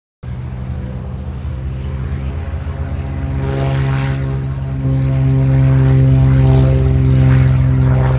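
Propeller airplane engine running steadily with a low, even drone. It cuts in abruptly at the start and grows louder about five seconds in.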